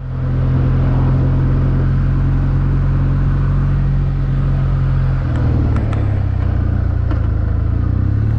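Motorcycle engine running steadily under way, with wind and road noise. About five seconds in, the engine note shifts lower.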